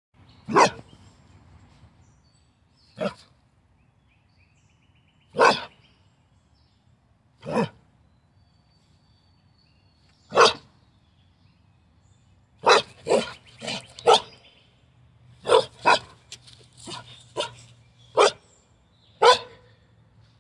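Carolina dog barking in play: single sharp barks a few seconds apart, then quicker runs of barks in the second half.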